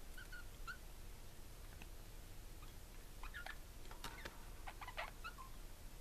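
Budgies (parakeets) giving soft, short chirps while preening each other, a few scattered at first, then a quick flurry of chirps mixed with a few sharp clicks in the second half.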